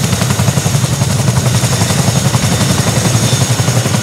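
Boeing CH-47 Chinook tandem-rotor helicopter running on the ground with both rotors turning: a steady, rapid blade chop with a high turbine whine above it.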